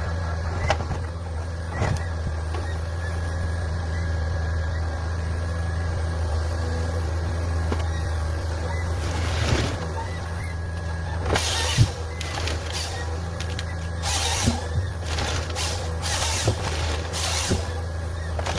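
Forestry harvester's diesel engine running steadily with a low hum, with a few sharp knocks and, from about two-thirds of the way in, repeated short bursts of hissing.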